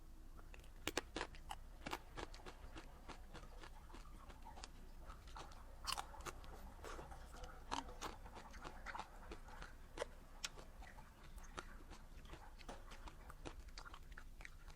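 Close-miked chewing and biting of a filled rose-shaped dessert: irregular crisp crunches and sticky mouth clicks, a few of them sharper and louder.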